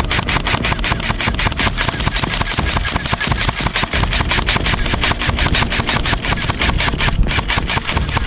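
Airsoft guns firing sustained automatic fire: a rapid, unbroken clatter of shots with no pause.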